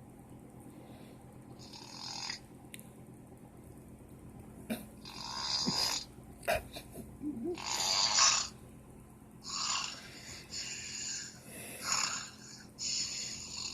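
A man snoring in his sleep: a run of noisy breaths every second or so, the loudest about eight seconds in.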